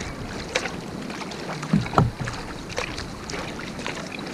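Kayak paddling: a double-bladed paddle dipping into the sea with splashes and drips, over a steady hiss of water and wind. The loudest splash comes about two seconds in.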